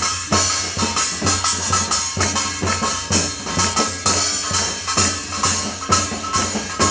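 Live percussion playing a steady beat: a tambourine jingling over drum-kit hits and the thuds of Korean barrel drums (buk) struck with sticks.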